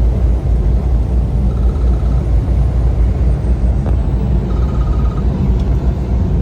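Semi truck's diesel engine and road noise heard inside the cab while driving: a steady low rumble. A faint, short, high ticking buzz repeats about every three seconds.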